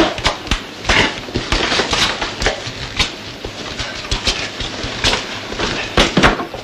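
Irregular footsteps and knocks on the wooden floor and stairs of an old house, a couple of sharp strikes a second.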